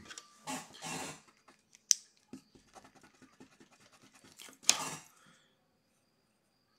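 Pencil working on paper in quick short strokes, with a few louder rubbing scrapes and one sharp click as drawing tools and a plastic stencil are handled on the desk.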